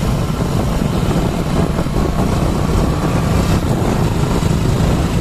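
Motorcycle running at road speed, with wind rushing over the microphone. Steady throughout.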